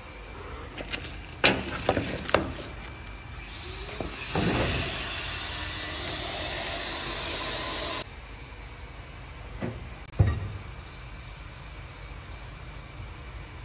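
Workshop handling sounds: a few sharp knocks of parts being picked up and set down, and a steady hiss lasting about four seconds that cuts off suddenly.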